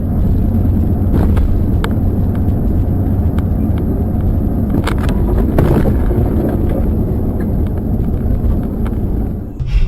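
Steady low rumble of a motor vehicle running, with a few short knocks and rattles.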